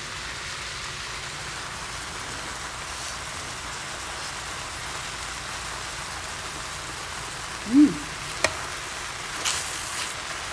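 A pan of vegetables, eggs and chicken mince sizzling gently on low heat, a steady soft hiss. Near the end a short pitched sound rises and falls, followed by a click and a brief louder hiss.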